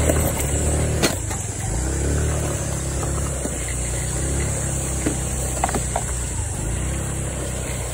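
A SYM Woo 115 scooter's small single-cylinder engine running at low speed as it is ridden over a rough, overgrown trail, its pitch rising and falling. A few sharp knocks are heard, the loudest about a second in.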